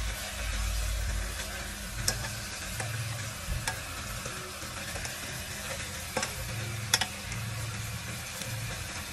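Metal ladle stirring pieces of sea fish braising in a stainless steel pot, over a steady sizzle. The ladle clinks sharply against the pot a few times.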